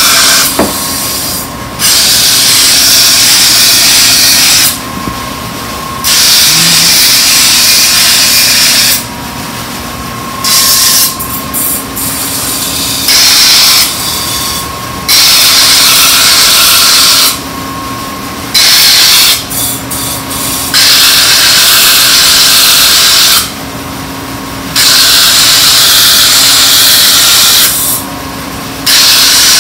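A motor-driven sharpening wheel runs with a steady hum while a kitchen knife blade is pressed against it in repeated passes. Each pass gives a loud grinding hiss lasting two to three seconds, with short pauses between, as the blade is ground and sharpened.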